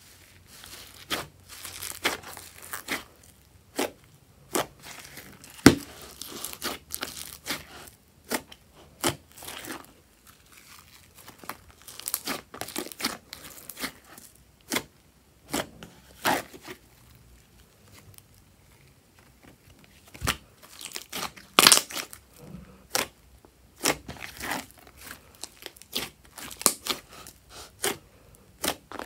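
Fluffy slime squeezed and kneaded by hand, its trapped air bubbles giving irregular crackling pops and clicks, with a few short pauses.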